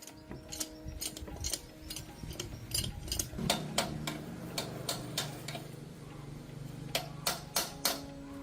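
Irregular metallic clicks and taps of tools and small metal parts being handled, with a steady low hum that comes in about three and a half seconds in.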